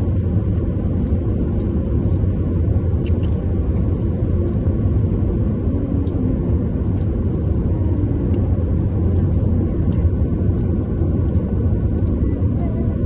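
Steady low rumble of a car driving at road speed, heard from inside the car: tyre and engine noise.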